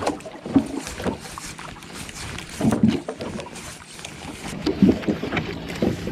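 Irregular knocks and creaks with water washing along the hull of a small outrigger boat, while a fish is reeled in on a rod.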